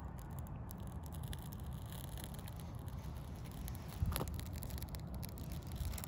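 Small birch-bark fire crackling with scattered light ticks, over a steady low rumble of wind on the microphone; one sharper click about four seconds in.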